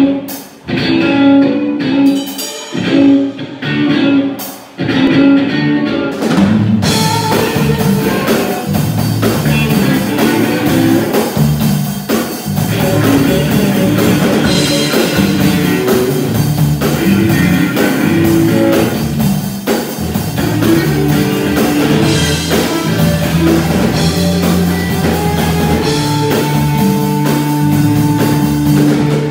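Live rock band with electric guitar, bass guitar and drum kit. It opens with sparse guitar notes for about six seconds, then the full band comes in with drums and plays steadily.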